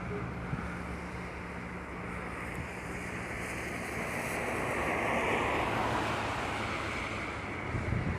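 Road traffic on a rain-wet street: tyre hiss from passing cars, swelling as one goes by about five seconds in and then fading, with some wind on the microphone.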